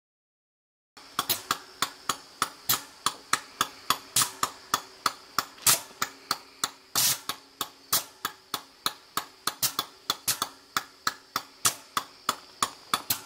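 GE B23-7 diesel locomotive moving slowly past close by, with a steady low engine hum and a faint high whine. Over this runs a regular sharp clicking, about three times a second, starting about a second in.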